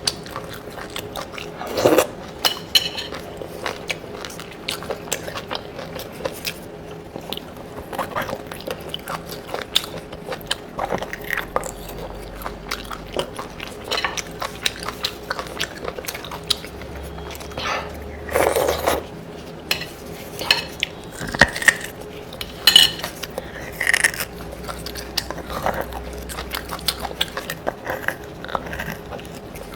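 Close-up eating of boiled beef bone marrow: scattered clicks and taps of utensils and bones against dishes, with biting and chewing.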